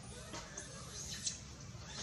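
Baby long-tailed macaque squeaking: a few short, high-pitched calls that rise and fall, with a short click a little past halfway.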